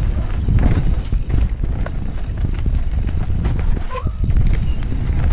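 Mountain bike descending a steep dirt trail: tyres running over dirt and stones, with the bike rattling and knocking at every bump and heavy wind rumble on the microphone.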